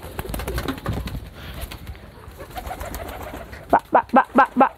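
Domestic pigeons' wings flapping and fluttering as they land on and lift off a person's hands and shoulders. Near the end comes a quick string of about six short pitched sounds in about a second.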